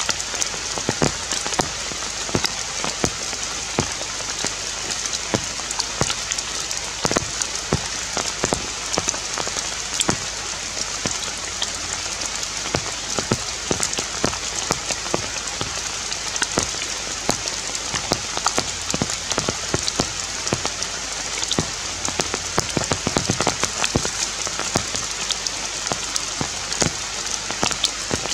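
Steady rain falling on forest foliage: an even hiss with many sharp drop taps.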